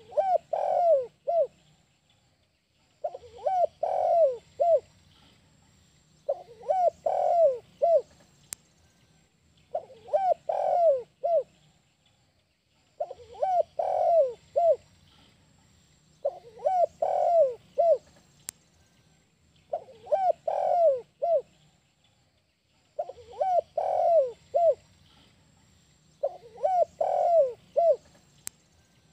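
Spotted dove cooing its 'kuk 1' song: a phrase of three or four coos repeated about every three seconds, nine times over.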